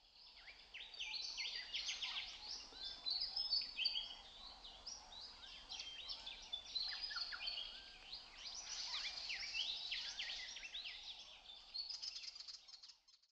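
A chorus of songbirds, with many short chirps and sweeping notes overlapping. It fades in at the start and fades out shortly before the end.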